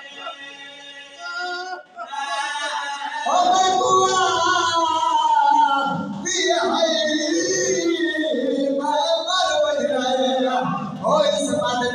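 A man's voice chanting a mournful sung recitation (zakiri) into a microphone, with long held notes that rise and fall in pitch. It swells much louder about three seconds in.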